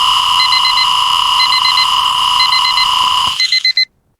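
Alarm clock beeping in quick groups of four, about once a second, over a loud steady electronic tone. The tone cuts off a little over three seconds in, a faster run of beeps follows, then it stops.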